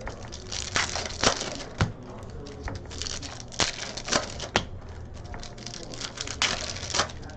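Trading card packs being opened and the cards handled: foil wrappers crinkling and tearing, with a string of sharp, irregular snaps and clicks.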